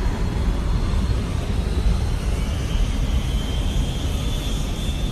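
Aircraft engine noise: a steady, loud low rumble with a faint high whine above it, rising a little about halfway through.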